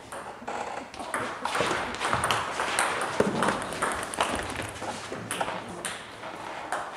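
Celluloid-type table tennis ball clicking off rubber bats and the tabletop in a fast doubles rally, a quick irregular run of sharp pocks.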